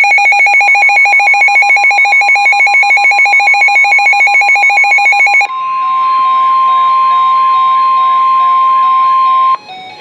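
Midland NOAA weather radio sounding a warning alert: a rapidly pulsing two-pitch electronic beep, then, about five and a half seconds in, a single steady warning tone that cuts off suddenly near the end. The alert marks a new flood warning coming in over NOAA Weather Radio.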